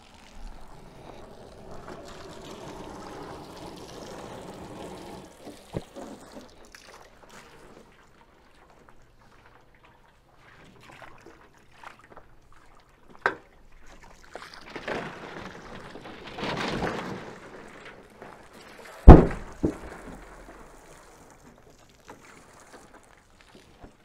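Hose water splashing onto a sealed steel drum in an ice-water bath, with a few sharp clicks, then a sudden loud bang and a second one right after as the drum caves in: the steam inside has condensed and atmospheric pressure crushes the drum.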